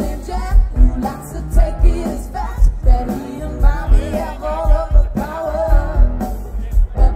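Music with a singing voice over a steady drum beat.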